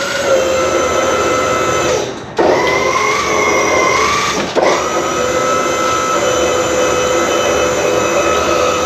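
Handheld power tool's electric motor running at speed with a steady whine, spinning up quickly at each start. It runs in three long runs, with short stops about two seconds and four and a half seconds in.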